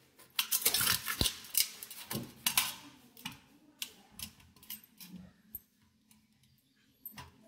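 Small kitchen knife cutting oranges in half on a stainless-steel plate: a quick run of clicks and scrapes as the blade goes through the peel and knocks on the metal, thinning out after about three seconds.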